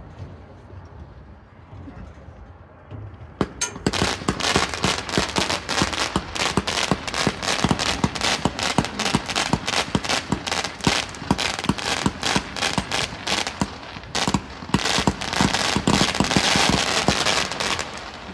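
1.4G consumer firework going off at ground level: a dense run of sharp crackling pops, many a second, starting about three seconds in, easing briefly near the end, then picking up again before stopping.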